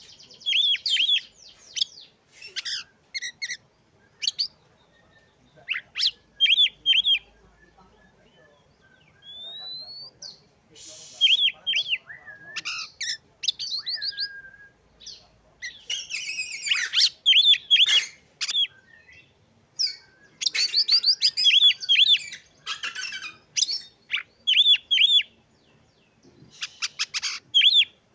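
Oriental magpie-robin (kacer) in full song: phrase after phrase of rapid repeated whistled notes and fast chattering trills, with short pauses between phrases and a single clear rising whistle about ten seconds in.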